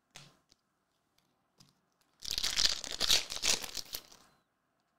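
Foil trading-card pack wrapper being torn open and crinkled by hand: a short faint rustle at the start, then a loud crinkling tear from about two seconds in, lasting about two seconds.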